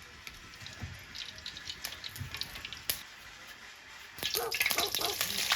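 Water dripping in irregular drops. About four seconds in, a louder, dense crackling noise starts.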